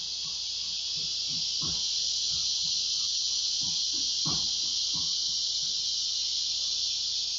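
Large male cicada calling: a loud, high-pitched buzzing drone that swells through the call and starts to fade right at the end.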